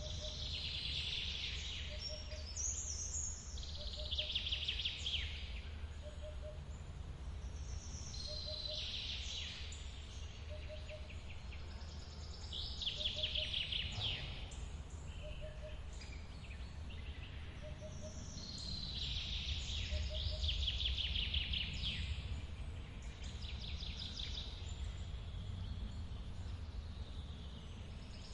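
Forest birds singing in short, repeated trilled phrases every few seconds over the low, steady rush of a waterfall. A soft low note repeats about once a second through the first half.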